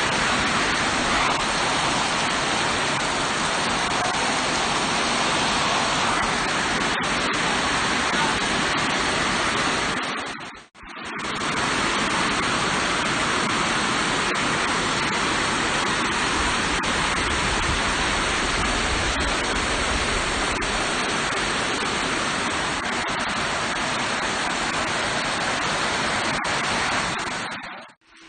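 Loud, steady rushing noise with no distinct events in it; it drops out for a moment about eleven seconds in, then resumes and stops near the end.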